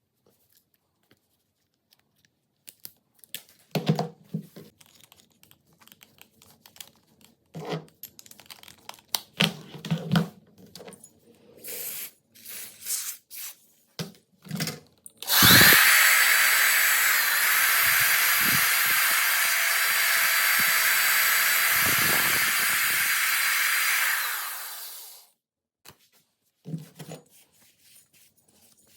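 Scattered short knocks and clicks, then a small electric power tool starts abruptly and runs steadily for about nine seconds before winding down.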